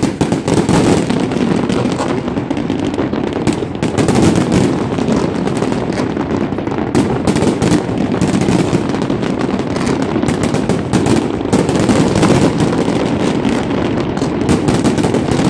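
Large fireworks display going off in a dense, continuous stream of bangs and crackling, the reports running together with no pause.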